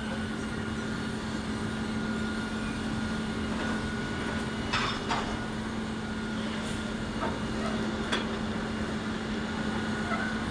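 Steady hum of an engine or machinery with background noise, broken by a few short clatters about halfway through.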